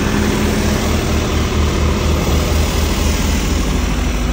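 Kirloskar 30 kVA diesel generator set running steadily inside its soundproof canopy: an even, low engine hum.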